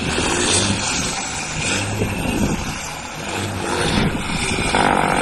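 Diesel engine of a backhoe loader running steadily, its level dipping about three seconds in and coming back up.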